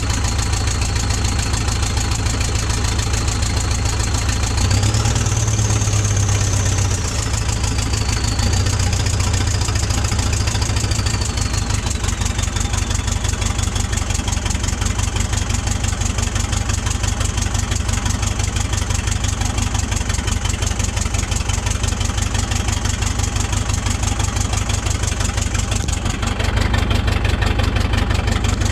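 Diesel engine of a Terex PT75 compact track loader running after an injector replacement. About five seconds in it revs up, with a high whine rising with it, then settles back to a steady idle over the next several seconds.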